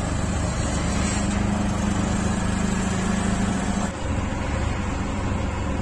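Auto-rickshaw engine running steadily with road noise, heard from inside the open cab while riding. A steady engine note holds from about a second in and drops away at about four seconds.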